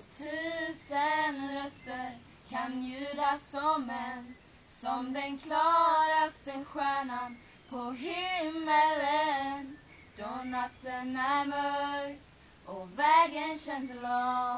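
Two girls singing together without accompaniment, in short phrases separated by brief pauses.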